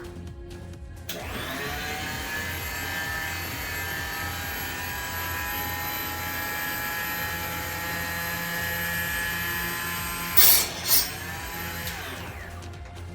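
Small high-speed rotary power tool spinning up, running steadily while cutting hard water-cooling tubing, with two loud short rasps near the end, then winding down.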